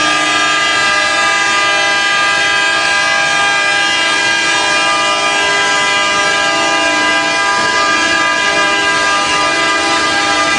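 Several horns sounding together in one loud, steady, held chord, with no breaks, saluting the jack-up rig as it slides down the launchway into the water.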